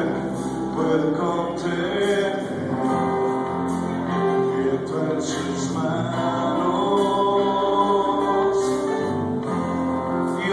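Live Christian worship song: a man singing long, held lines over acoustic guitar and band, heard from the back of a hall.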